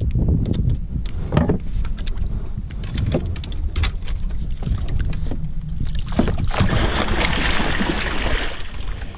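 A big rainbow trout thrashing beside a kayak as it is grabbed by hand: a series of short knocks and water slaps, then a sustained burst of splashing from about seven seconds in. A low rumble of wind on the microphone runs underneath.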